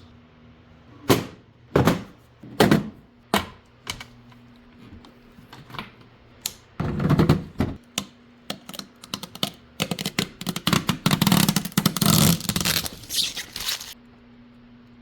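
Hands handling and unpacking small hardware: a few sharp knocks and clicks, a scraping stretch about halfway through, then a dense run of quick clicks and rubbing near the end.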